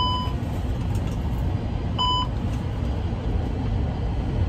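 Airbus cockpit alert tone beeping: a short steady beep repeated about every two and a half seconds, twice here, over a steady low rumble.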